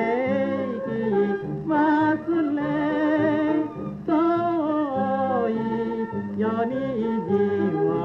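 Music from a 1930 Japanese popular-song (ryūkōka) record with orchestra: a melody with strong vibrato over a steady low accompaniment.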